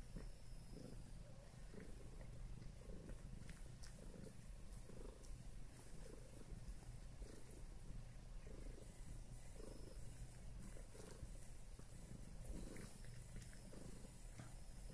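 Domestic cat purring faintly and steadily, with soft pulses about twice a second.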